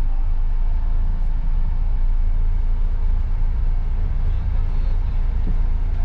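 A coach bus running, a steady low rumble.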